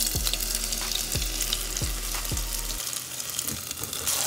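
Hot oil sizzling and crackling in a countertop electric deep fryer as a whole breaded croaker fish goes into the basket.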